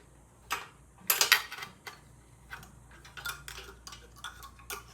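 Irregular light metallic clicks and taps from the linkage of a motorcycle's twin-actuator drum brake and the tools on it, being handled and adjusted. The loudest cluster comes about a second in, followed by a run of small, quick ticks.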